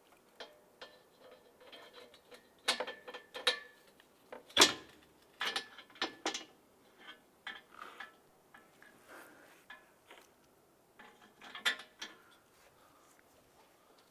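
Irregular metallic clicks and knocks as A/C line fittings and hardware are handled and fitted onto a new A/C condenser. The loudest knock comes about four and a half seconds in.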